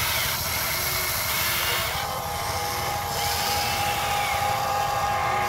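Huina 580 RC hydraulic excavator running: a steady electric whine from its motor and hydraulic pump, with tones that bend up and down as the arm lifts and swings the bucket.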